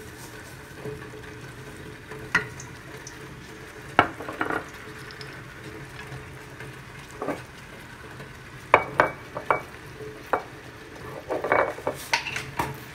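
Wooden spatula stirring sauce in an aluminium pot, knocking and scraping against the pot now and then, more often in the second half. Under it runs a faint, steady sizzle from the sauce on the heat.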